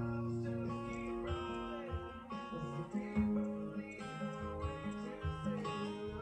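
Steel-string acoustic guitar with a capo, strummed chords that change about once a second.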